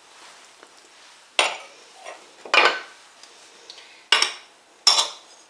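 Kitchen dishes and utensils clinking and knocking, four sharp strikes a second or so apart, as food is served onto a plate.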